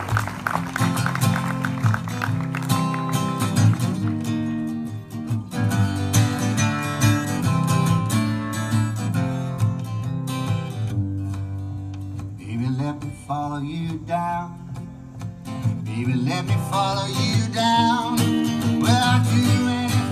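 Solo acoustic guitar playing the introduction to a song, with a steady low bass line under the chords.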